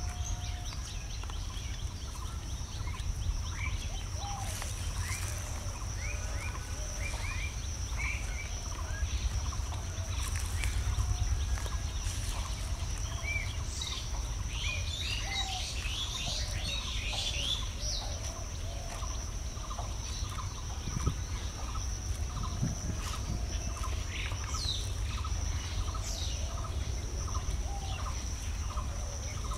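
Outdoor rural ambience: many small birds chirping in short calls over a steady high-pitched insect drone and a low rumble. From about halfway through, a call repeats regularly, a little more than once a second.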